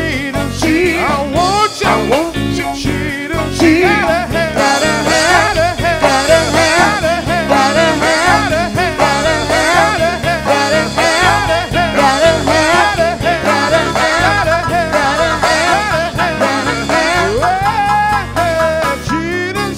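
Live gospel band playing, with drum kit, electric guitar, bass guitar and keyboard, under a sung vocal line of drawn-out, wavering notes; about 17 seconds in, the voice slides up into a long held note.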